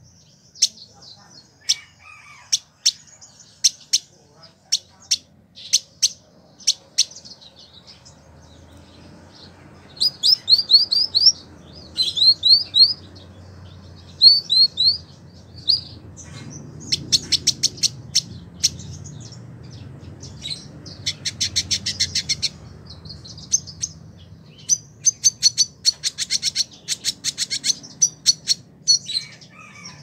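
Male village indigobird singing. It opens with a run of sharp single chips, then moves into clusters of quick upslurred whistled notes and fast buzzy trills that come in repeated phrases.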